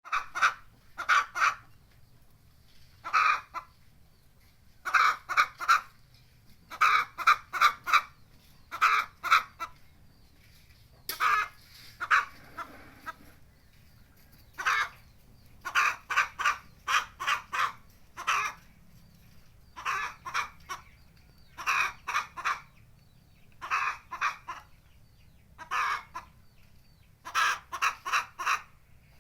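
A chicken calling over and over with loud, short clucks. They come in quick groups of two to four, a new group every second or two.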